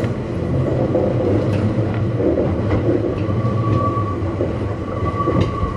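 Kintetsu 1430 series electric train running on the line, heard on board: a steady low rumble with scattered clicks from the wheels over the rails. A thin steady whine comes in about three seconds in.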